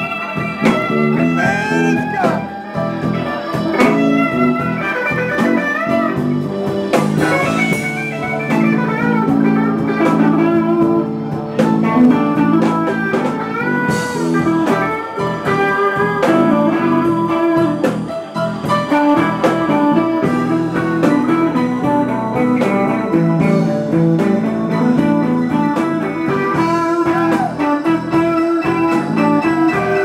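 Live blues band playing, with a guitar taking lead lines full of bent notes over a steady low backing and a beat.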